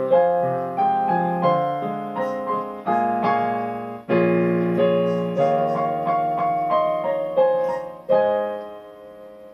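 Piano playing the closing bars of a song, a chord or note struck every half second or so. A final chord a little before the end is left to ring and fade away.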